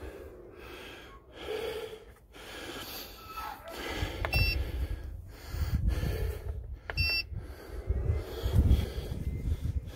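Stanley battery charger giving two short electronic beeps, about three seconds apart, as its front-panel buttons are pressed. Under them is an uneven low rumbling.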